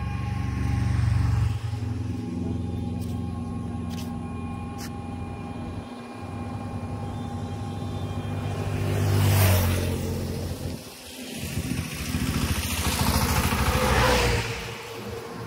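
Road traffic: a motor vehicle's engine running close by, then two vehicles passing, one about halfway through and another near the end.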